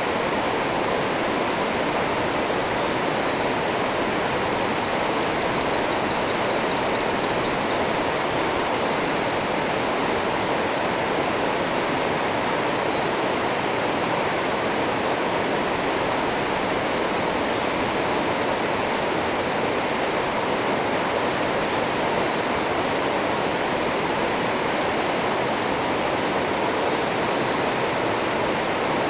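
River rapids rushing steadily over rocks, an even roar of white water. About four seconds in, a high, rapid trill of repeated notes sounds over it for about three seconds.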